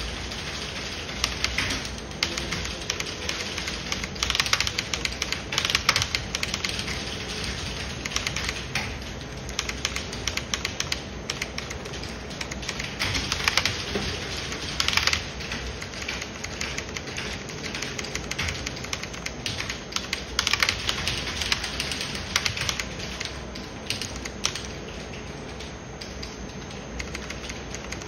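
Computer keyboard being typed on: rapid keystrokes coming in bursts, with lighter, scattered key clicks between them.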